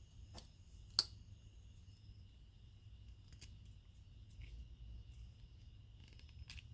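Twosun folding pocket knife being flicked, its blade clicking on the detent and lock. There is one sharp snap about a second in and a few fainter clicks after it.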